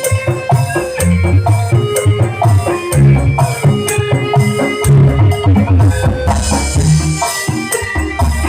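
Loud music with a heavy bass line and steady percussion hits.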